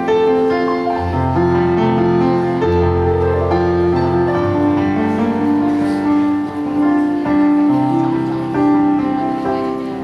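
A choir performance with keyboard accompaniment: held chords over a sustained bass line that moves every second or so.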